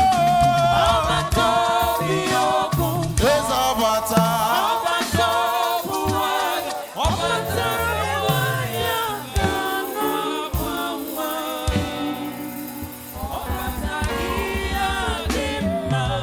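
Gospel praise music with a choir singing over a band with bass and drums.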